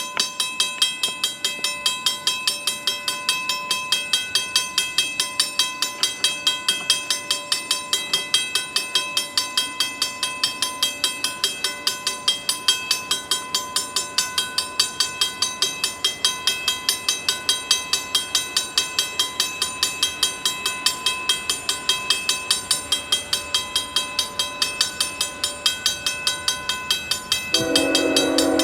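Railway grade-crossing warning bell ringing in a fast, even rhythm of about three to four strikes a second. About a second before the end, a diesel locomotive horn starts to blow, loud over the bell.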